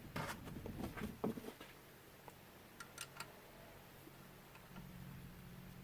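Faint handling noises as screws on a CNC router's spindle mount are tightened by hand: light clicks and scrapes in the first second and a half, then a couple of small ticks about three seconds in, over a faint low hum.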